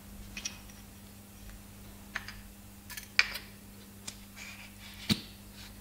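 Small metal parts of a Brose e-bike motor's crankshaft assembly clicking and tapping as they are handled and fitted together by hand: a handful of light, sharp clicks, the loudest a little past three seconds in, over a steady low hum.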